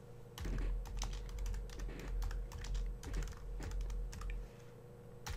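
Typing on a computer keyboard: a quick run of keystrokes for about four seconds, then a single louder key press near the end.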